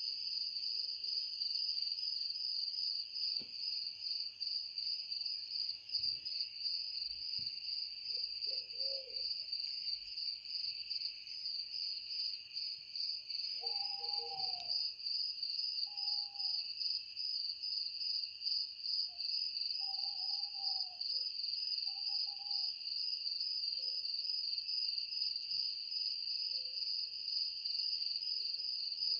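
A steady, high-pitched, rapidly pulsing chorus of crickets. About halfway through, a few short, lower calls sound, some arching down in pitch.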